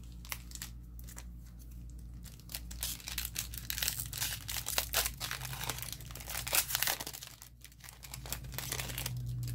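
Foil Magic: The Gathering booster pack wrapper being torn open and crinkled by hand: a few light clicks, then a long stretch of dense crackling and tearing that eases off near the end.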